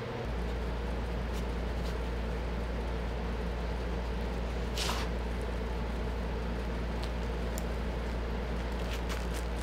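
A steady low hum that comes on just after the start, under the rustle of a dog nosing into a fabric purse, loudest as one brief rustle about five seconds in, with a few faint clicks near the end.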